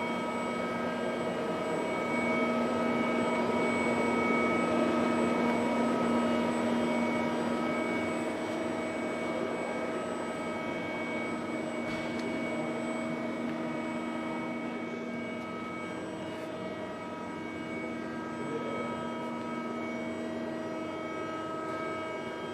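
HWACHEON Cutex 160A CNC turning and milling center running: a steady whine of several held tones over a rushing hum, swelling slightly a few seconds in, with one faint click midway.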